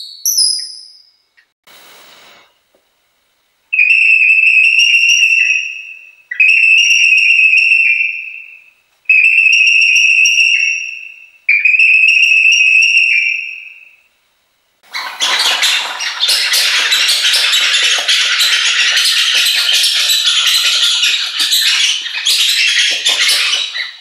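Hand-held bird-call lures being played: four long whistled notes at one steady pitch, each starting sharply and fading away, then about nine seconds of a dense, scratchy rattling chatter.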